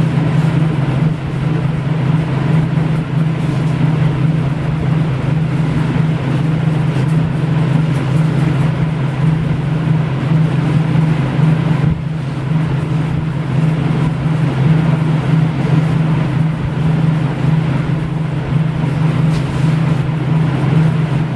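A steady low hum with a hiss over it, unchanging throughout, like a running motor or fan.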